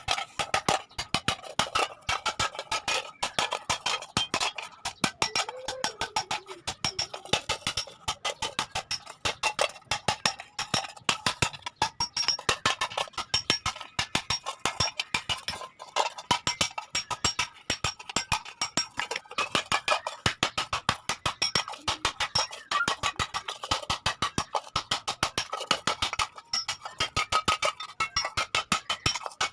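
Rapid, steady hammer blows on iron with a metallic ring, as the iron is hammered into shape.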